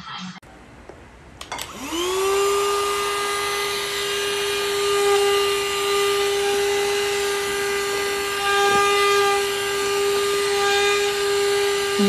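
Cordless handheld mini vacuum cleaner switched on with a click about a second and a half in. Its motor spins up within half a second to a steady high whine with a bright, many-toned edge, and runs on.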